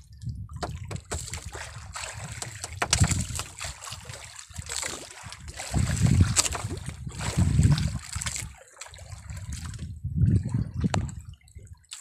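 Water sloshing and lapping against the hull of a small boat in irregular surges, with scattered sharp knocks.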